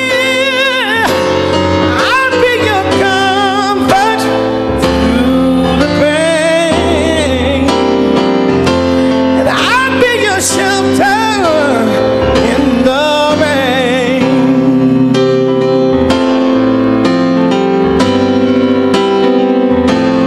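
Slow soul ballad: sustained piano chords under a high lead melody that glides and wavers with vibrato.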